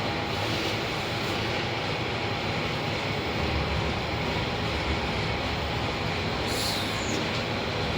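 IFE passenger lift travelling in its shaft, heard from inside the car: a steady rumble and airy hum, with a brief hiss about six and a half seconds in.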